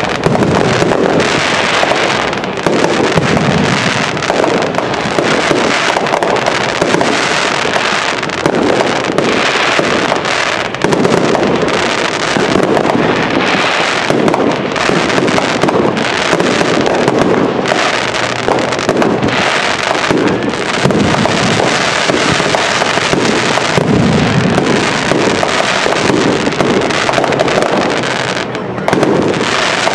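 Fireworks going off in a dense, continuous barrage: overlapping bangs and bursts follow one another with no pause, as in a finale.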